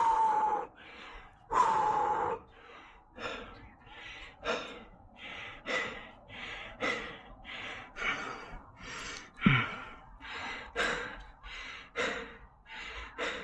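A man panting hard to get his breath back after an all-out run. He gives two long gasping breaths near the start, then settles into quick, rhythmic breaths about two a second, with a short grunt about nine and a half seconds in.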